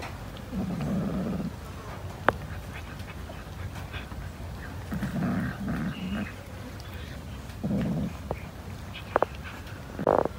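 A cat growling low over shared food, in three short bouts, one near the start, one about five seconds in and one near eight seconds in. A sharp click about two seconds in.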